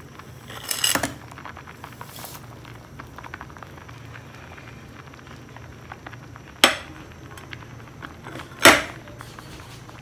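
Milk vermicelli pudding being cooked: sugar slides off a plate into the pot about a second in, then a metal spoon clinks sharply against the aluminium pot twice, about two seconds apart, with faint small clicks in between and a low steady hum underneath.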